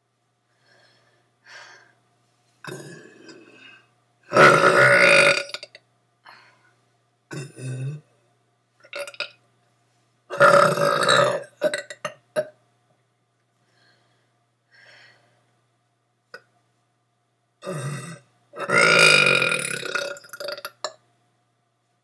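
A person burping three times, long drawn-out burps of one and a half to two seconds each, about six to eight seconds apart. Shorter, quieter throat sounds fall between them.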